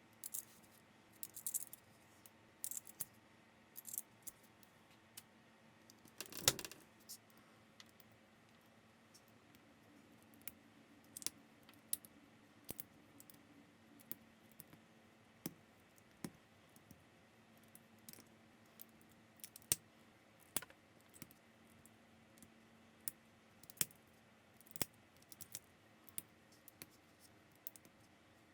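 Plastic building bricks clicking and snapping together as pieces are handled and pressed on: small, sharp clicks at irregular intervals, with one louder knock about six seconds in.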